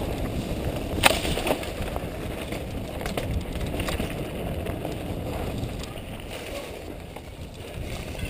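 Mountain bike descending a dry dirt singletrack: knobby tyres rumbling over the trail and the bike rattling, with a sharp knock about a second in.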